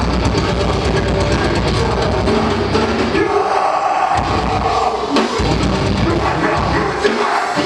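Metalcore band playing live and loud: distorted guitars and a drum kit at full tilt, with the heavy low end cutting out briefly a little over three seconds in and again near the end.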